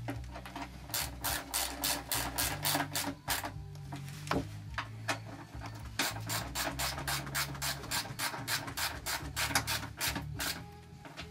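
Hand ratchet wrench clicking in two quick runs, about four or five clicks a second, as the bolts of the engine's underbody cover are driven back in.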